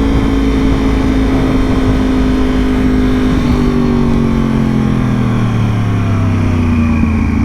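Yamaha R1 sport bike engine under way, with wind rushing over the rider's helmet microphone; the engine note falls slowly and steadily as the bike eases off.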